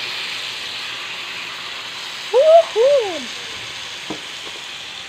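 Marinated chicken sizzling on a hot grill pan, a steady hiss. About two and a half seconds in, two short voice-like calls rise and then fall in pitch, and a light click follows a little after four seconds.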